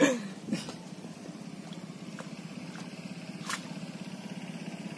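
An idling engine hums steadily with an even pulse. A short sound with a falling pitch comes right at the start, and a sharp click about three and a half seconds in.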